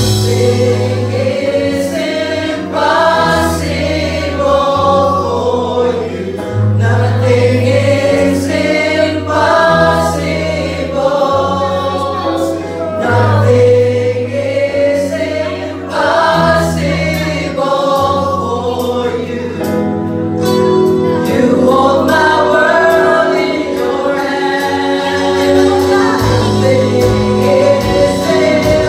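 A live worship band and singers performing a Christian worship song: group singing over bass notes that change every couple of seconds, with drum hits keeping the beat.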